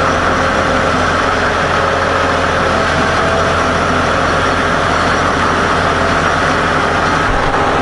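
Caterpillar 988H wheel loader's C18 diesel engine running at a steady idle.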